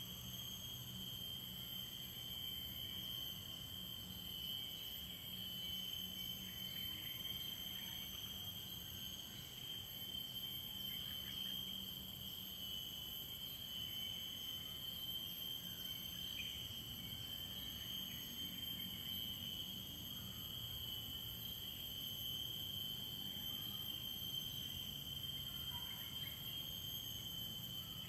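Steady, unbroken high-pitched insect chorus of crickets, with a low hum underneath.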